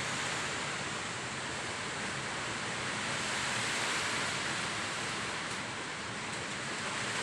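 Heavy typhoon rain pouring in strong wind: a steady, dense hiss.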